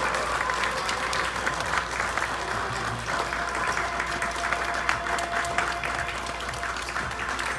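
Audience applauding, many hands clapping at once. A faint held tone comes in about three seconds in.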